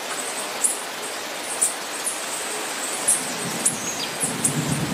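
Steady hiss of rain falling on cloud-forest foliage, with short, very high chirps repeating irregularly about once or twice a second.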